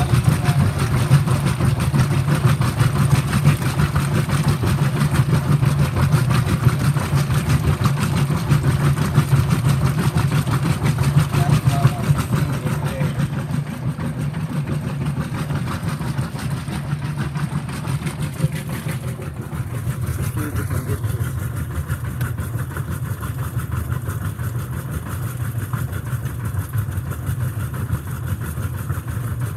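Whirlpool direct-drive top-load washing machine agitating on its high-agitation setting: a steady motor and transmission hum under fast, even churning of water and clothes. It grows somewhat quieter about halfway through and duller a few seconds later.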